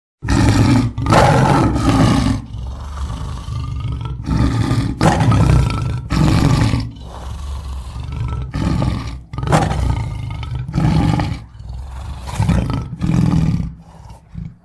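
Big cat roaring: a string of loud, throaty roars with short pauses between them.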